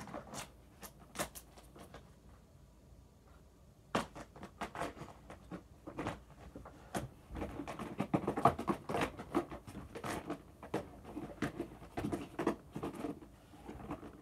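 Irregular run of small sharp clicks and crackles from close hand handling. It thins out for a couple of seconds near the start, then turns dense from about four seconds in.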